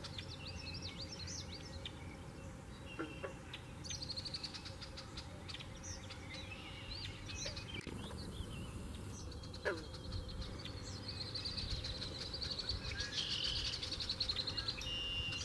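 Marsh birds calling: assorted short high chirps, a long high trill about four seconds in, and a longer trill near the end. Wind rumbles on the microphone throughout.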